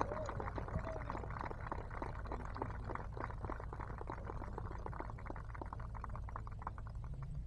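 A small crowd clapping, the claps thinning out and dying away near the end.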